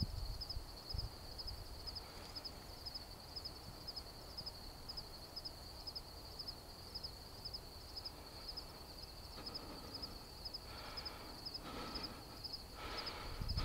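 Faint outdoor ambience: an insect's high chirp repeating steadily about three times a second over low wind rumble, with a few short calls near the end.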